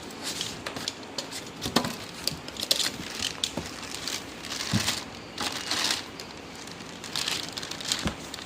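Packaging being handled during a speaker unboxing: crinkling and rustling with scattered clicks and knocks.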